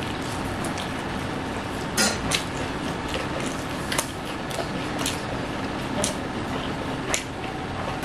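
Two people chewing and eating with wet mouth sounds, with about half a dozen short sharp smacks or clicks, over steady background noise.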